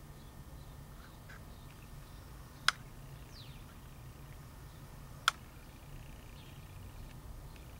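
Two sharp clicks about two and a half seconds apart over a faint low rumble, with a few faint high chirps between them.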